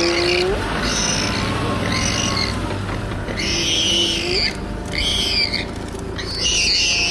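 Spotted hyenas calling: drawn-out calls held on one pitch and rising at the end, with rough hissing bursts about once a second.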